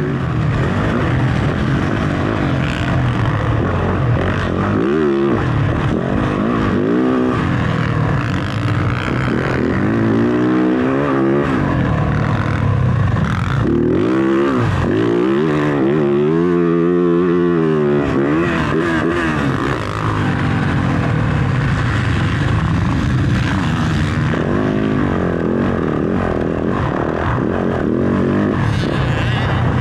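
Motocross dirt bike engine running hard on a track, its pitch repeatedly rising and falling as the throttle is worked and the gears change.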